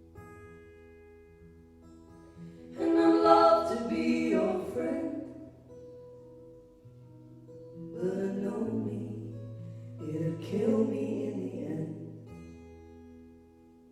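Closing bars of a live folk-pop song: sung vocal phrases over held, sustained chords, in two passages. It ends on a long held low note.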